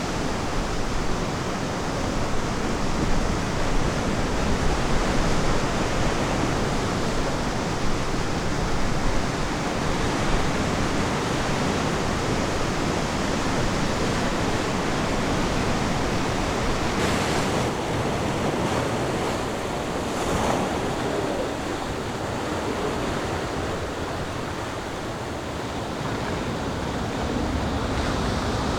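Ocean waves breaking and washing on a beach, a steady rushing surf that swells and eases slowly, with some wind.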